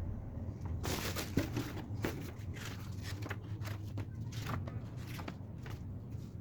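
Rustling and a series of short clicks from things being handled, over a steady low hum.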